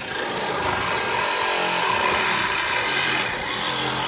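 Hydraulic rescue tool (jaws of life) working on a car's door, metal straining and grinding for a couple of seconds in the middle, over a steady engine running underneath.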